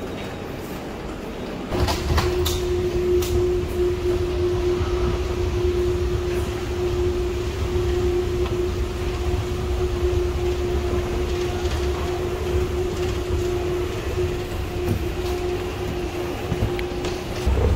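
Steady low mechanical rumble with a constant hum, the running noise of subway-station machinery, starting suddenly about two seconds in and stopping just before the end. A few sharp clicks sound soon after it starts.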